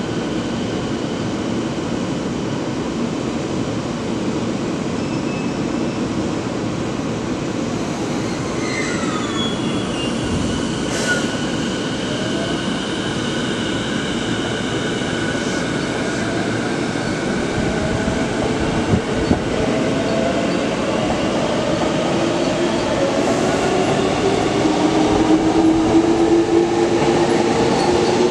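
Electric commuter train pulling away from the platform: a steady rumble with a brief wheel squeal, then its traction motors whine in several tones rising in pitch as it speeds up, growing louder near the end.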